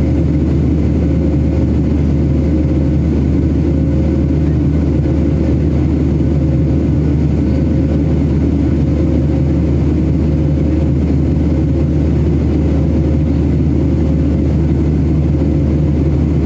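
Boeing 737 jet engines and rushing air, heard as a steady, unbroken drone inside the passenger cabin in flight.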